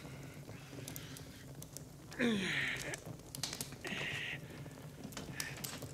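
Open wood fire crackling with scattered small pops, and a man's breathy vocal sound falling in pitch about two seconds in, followed by a second short breathy hiss about four seconds in.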